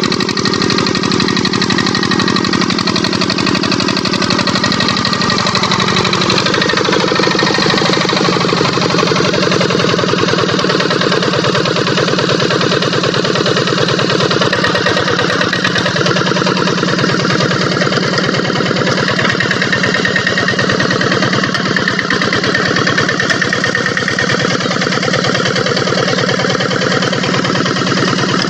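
Single-cylinder diesel engine of a two-wheel walking tractor running steadily under load as it tries to drive a loaded trailer out of mud. Its sound changes about five seconds in.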